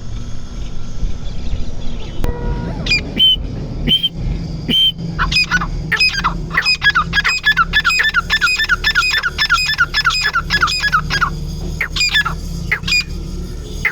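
Female grey francolin (desi tetar) calling. A few single notes come first, then a fast run of sharp, falling notes at about four a second for several seconds, then a few more notes near the end. A steady low hum runs underneath.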